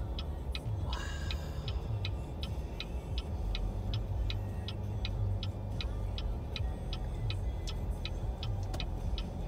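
A car's indicator ticking evenly, nearly three ticks a second, over the low hum of the car running.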